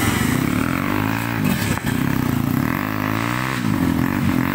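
Dirt bike engine revving up and dropping back about three times while the rear wheel spins in loose dirt: the bike is down on its side on a steep climb and stuck without traction.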